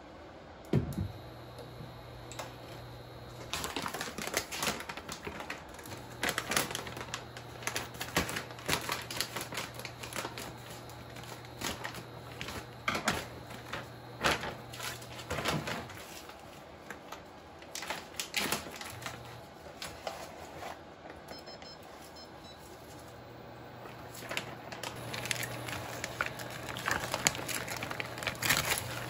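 Cookware and food packaging being handled on a kitchen counter: a pan set down on an electric cooktop, packets and plastic bags handled, with a run of sharp clicks, knocks and clatter. A low steady hum comes and goes underneath. Near the end, a pouch of sauce is squeezed out into the pan.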